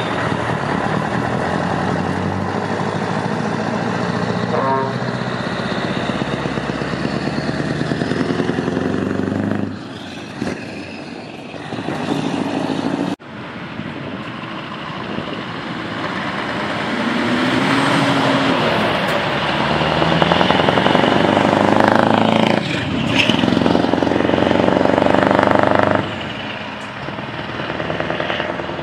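Scania V8 truck engines with open exhaust pipes pulling away and accelerating, a deep rumble whose note climbs and drops off briefly between pulls, as at gear changes. Two trucks are heard, one after the other, with an abrupt cut between them about 13 seconds in.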